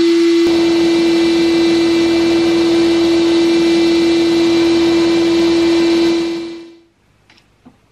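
Sandblast cabinet blasting rust off a steel crosscut handsaw blade: a loud, steady hiss of air and abrasive over a steady hum, growing fuller about half a second in. It fades out about a second before the end, leaving a few faint clicks.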